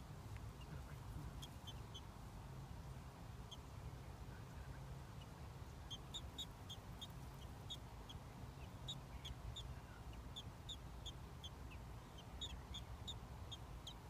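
American robin nestlings giving faint, short, high begging peeps, a few at first and then several a second from about six seconds in, over a low rumble.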